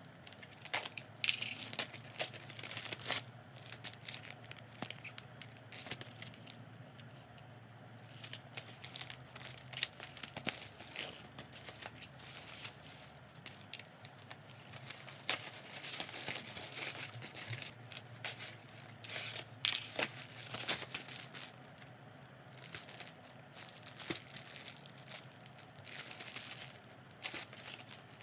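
Parcel packaging being crinkled and torn open by hand, in irregular rustles and sharp crackles with a quieter pause partway through.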